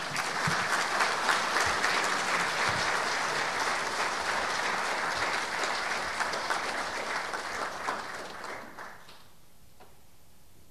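Audience applauding, a dense patter of many hands clapping that tapers off and stops about nine seconds in.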